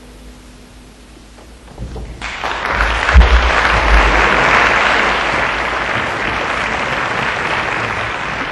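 Audience applause breaking out suddenly about two seconds in, after a quiet moment at the end of an orchestral piece, and then holding steady.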